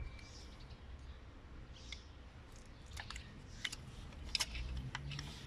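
Scattered light clicks and taps of small parts being handled during an ignition coil swap, several in quick succession in the second half, over a low steady hum.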